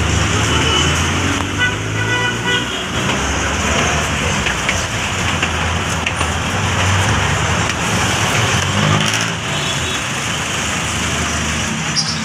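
Busy road traffic: vehicle engines running close by, with a low steady engine hum over a continuous rush of traffic noise.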